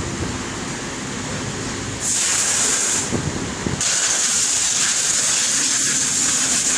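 Steady hiss of molten wax streaming from an aluminium kettle into candle moulds. It drops out briefly a little after three seconds in and then resumes, with a couple of low knocks around that break.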